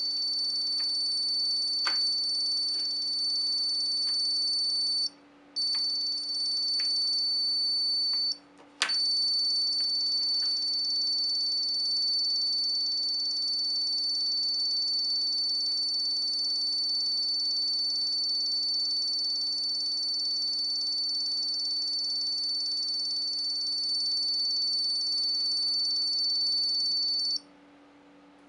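Piezo buzzer on a gate-remote radio receiver board sounding one long, steady, high-pitched tone, the signal that the receiver is in remote self-learning mode. It cuts out briefly twice, about five and eight seconds in, the way the signal pauses and resumes as a new remote's code is accepted, and stops a little before the end. A few faint clicks, with a sharper one about nine seconds in.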